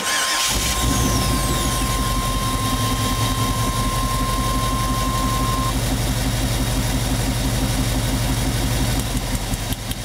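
1998 Chevy van's 5.7-litre V8 starting, then idling with an uneven pulse: a constant misfire on more than one cylinder. A steady high tone sounds alongside for the first six seconds, then stops.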